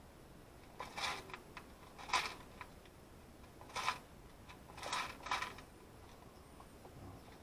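Small metal washers and hardware clinking and rattling in a plastic parts bin as a hand rummages through them, in several short bursts.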